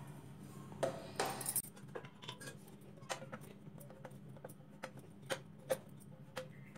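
Dough being rolled out thin with a wooden rolling pin on a round metal rolling board: a run of light clicks and knocks from the pin against the board, some with a short metallic ring.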